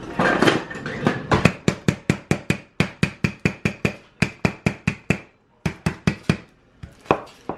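Knife chopping small Butterfinger candy bars on a cutting board: a quick, even run of sharp chops, about four a second, with a short pause about five seconds in.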